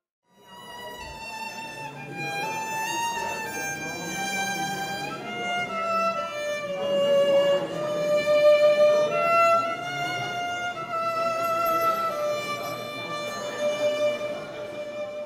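Background music: a slow melody of long held notes over a soft accompaniment, starting just after a brief silence and fading out at the end.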